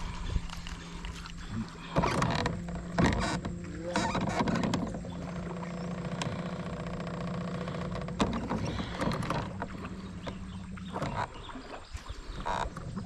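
A small boat motor running with a steady hum, with a few sharp knocks in the first few seconds; the hum stops near the end.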